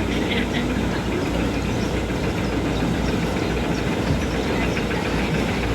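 An engine idling steadily, an even low hum that holds throughout.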